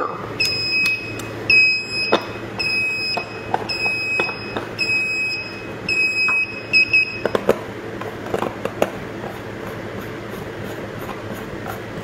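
Burglar alarm control panel sounding its exit-delay warning after being armed: a rapid run of short, high, even beeps that stops about seven seconds in. A few soft knocks come in between.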